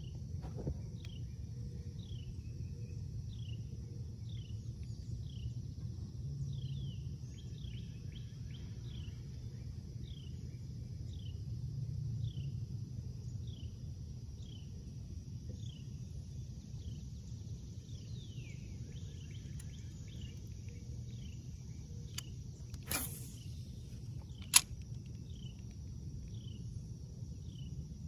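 Lakeside ambience: a bird repeats a short falling call about once a second over a steady high insect drone and a low steady rumble. Near the end come two sharp clicks, and the second one is the loudest sound.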